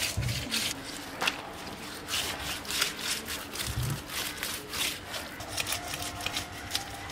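Knife scraping the scales off a whole fish laid on a stone, in a run of quick, irregular rasping strokes. Two low thumps come in, one near the start and one just before midway.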